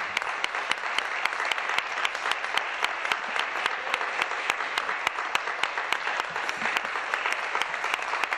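Sustained applause from members of the legislature, many hands clapping. Sharp single claps near the microphone stand out above the rest about four or five times a second.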